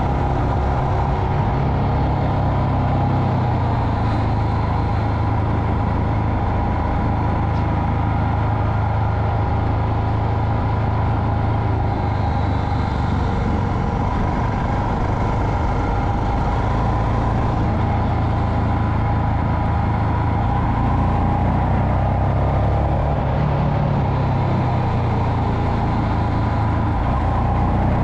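Royal Enfield Himalayan's 411 cc single-cylinder engine running steadily at an even road speed, its pitch holding nearly level.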